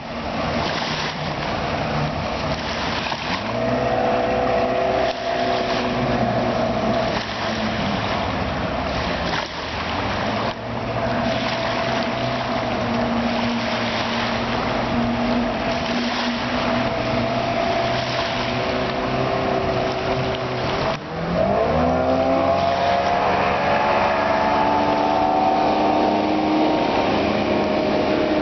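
Outboard motor of a 1993 Seaswirl Striper 210 running on the water. About 21 seconds in the throttle opens and the engine pitch rises steeply, then holds high as the boat speeds off.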